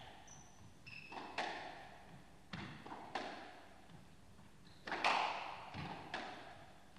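Squash ball driven back and forth in a rally: about seven sharp cracks of racket on ball and ball on wall, each ringing briefly in the court. A couple of short, high shoe squeaks on the court floor come about a second in.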